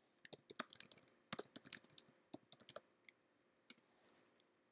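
Typing on a computer keyboard: a quick, faint run of key clicks, thinning to a few spaced taps in the last second or two.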